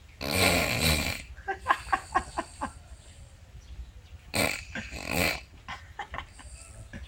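A person snoring loudly: a long, vibrating snore of about a second, a string of short snorts, then another two-part snore about four seconds in.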